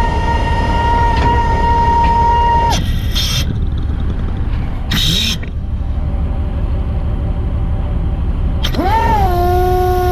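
Fishing boat's engine running with a steady low rumble. Two long whining tones sound over it: a higher one for the first three seconds and a lower one near the end. Each slides up, holds steady and cuts off sharply. Between them come two brief clattering noises.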